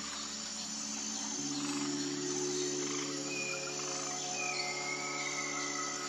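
A steady high insect trill over soft, sustained background music chords that shift about a second and a half in. A bird gives a short whistle about three seconds in, then a longer, slightly falling whistle.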